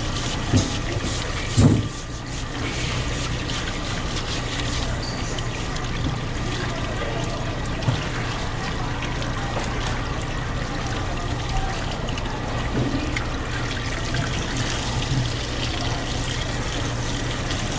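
Water running steadily, with two short dull knocks in the first two seconds.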